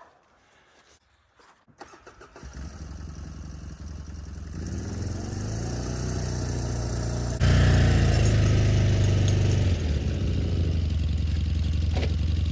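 Engine of an old, worn-out quad (ATV) starting up and running, building up over a few seconds, then suddenly louder from a little past halfway.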